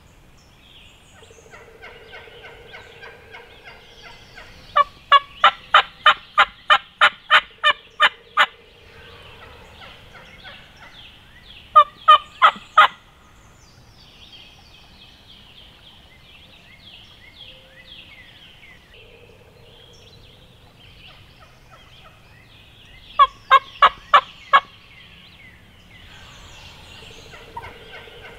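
Turkey calling: three runs of loud, sharp repeated notes at about three a second. The first run of about a dozen notes comes a few seconds in, a short run of four comes about halfway, and a run of six comes near the end, over faint high chirping.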